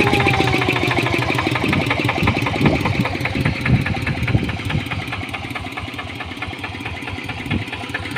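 TL 800 tractor engine running with rapid, even firing beats, and a high whine, the 'nging' noise, that falls in pitch and fades out about a second and a half in.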